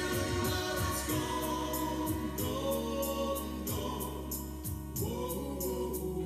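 A Christmas song: a group of voices singing together over a band, with a steady ticking beat of high percussion.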